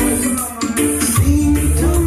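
Loud reggae music played through a sound system, with a melody line over the beat. The bass drops out near the start and comes back in a little past the middle.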